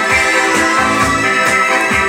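Music playing from a vinyl record on a direct-drive turntable: a keyboard-led pop track with a steady beat.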